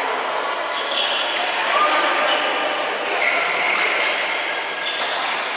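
Badminton play in a large hall: rackets striking the shuttlecock in sharp cracks and sneakers squeaking on the court mats, with voices from neighbouring courts.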